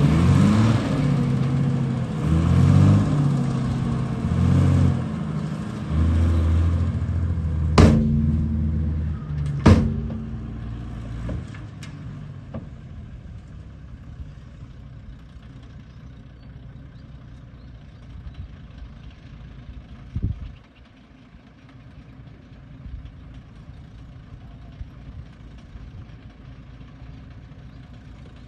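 Bulldozer engine running and revving, its pitch stepping up and down, with two sharp knocks about eight and ten seconds in. It then drops to a quieter steady running, with one thump about twenty seconds in.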